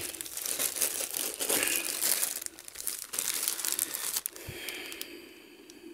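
Thin clear plastic bag crinkling as the jeans sealed inside it are handled and turned over. The crinkling is busiest for the first four seconds or so, then goes quieter.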